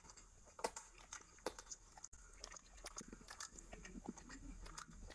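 Close-miked wet chewing and lip-smacking of a mouthful of mutton curry and rice, with many short scattered mouth clicks. Near the end, fingers squish rice into gravy on the plate.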